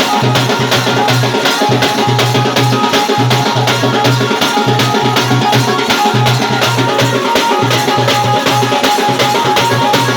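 Folk dance music led by drums beating a fast, even rhythm, about five strokes a second, with held higher notes from other instruments over it.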